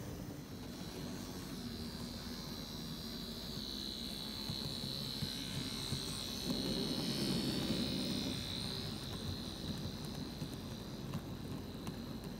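Märklin Z scale model train running past: the tiny electric motor of the locomotive whines, swelling and loudest around the middle as it passes close, with a low rumble of wheels on the track.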